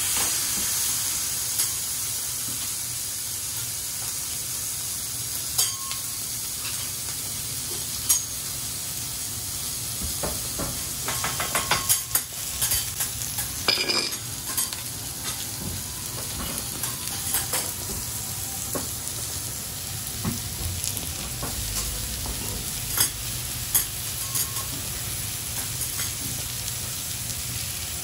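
Noodles, squid and cabbage sizzling on a hot teppanyaki griddle, with metal spatulas tapping and scraping against the plate. The taps come in a quick flurry about halfway through.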